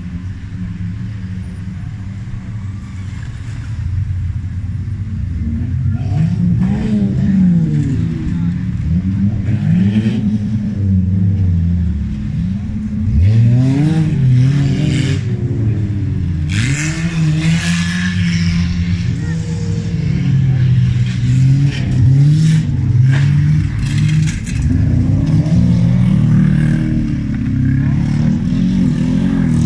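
Engines of several old wreck-race cars revving up and down on a dirt track, their pitch rising and falling as they accelerate and lift off, overlapping one another. About halfway through, a stretch of clattering and scraping noise rises over the engines.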